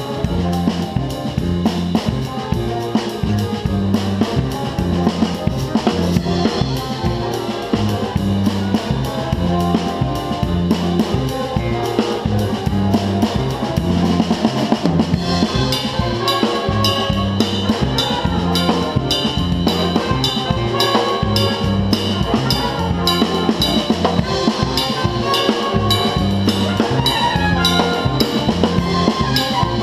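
Big band playing, with the drum kit prominent: a steady pattern of snare, cymbal and bass drum strokes over a line of low notes. About halfway through, the band grows fuller and brighter.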